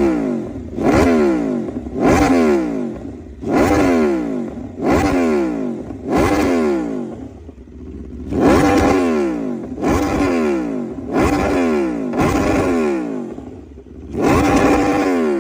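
Aprilia motorcycle engine being blipped at a standstill: about a dozen quick throttle revs, each shooting up and falling back, with a short pause after the middle and another near the end.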